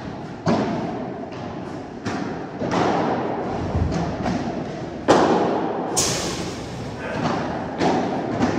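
Padel rally: a padel ball being struck by rackets and bouncing, a series of sharp pops about every second with a short echo after each. The loudest hit comes about five seconds in.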